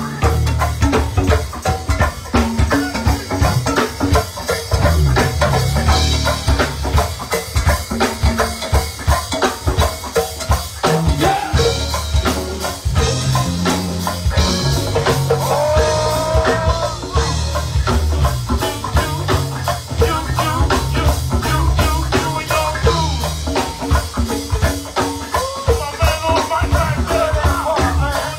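Live go-go band playing: a drum kit and congas drive a steady, dense beat over a moving bass line.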